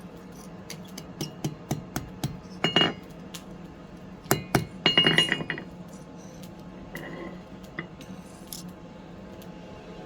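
Light metallic taps and clinks of steel, coming about two or three a second. Two louder ringing metal clatters come in the middle. A steady low hum runs underneath.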